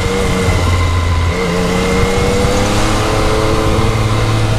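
Yamaha MT-09's three-cylinder engine running through its stock exhaust while being ridden, heard from the rider's seat. The engine note climbs gently from about a second and a half in as the bike picks up speed.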